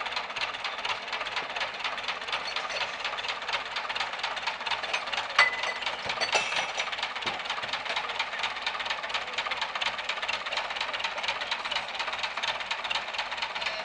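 Tractor engine running steadily under load with a fast, knocking rattle while it hauls a houseboat ashore on a rope. A sharp clank with a brief ring comes about five seconds in, and a weaker one about a second later.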